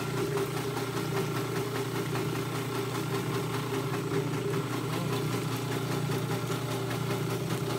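A machine running steadily with an even low hum, keeping the same pitch throughout.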